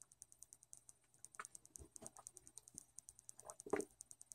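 Faint handling sounds: a few soft knocks and rustles as a plastic water bottle is capped and set aside and a cardboard Pop-Tarts box is picked up, the strongest knock about three and a half seconds in. Under them runs a fast, faint, high ticking.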